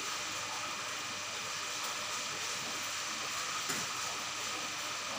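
Aquarium filter and aeration running: a steady hiss of moving water and bubbles with a faint constant whine.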